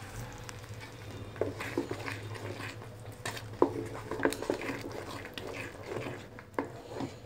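Wooden spoon stirring and scraping thick eggplant mash in a metal karahi: irregular soft knocks and scrapes, starting about a second in, over a low steady hum.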